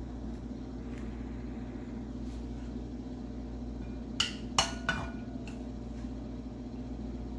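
Cookware clinking three times in quick succession, about four seconds in, as fried rice is scraped out of a frying pan into a ceramic bowl, over a steady low hum.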